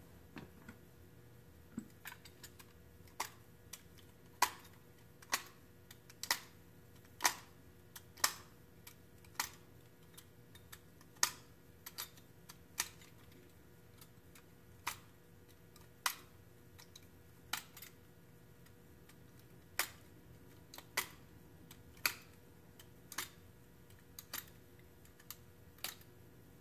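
Sharp, irregular clicks, about one a second, of small hard objects being handled and set down on a wooden workbench while a dowel joint is laid out.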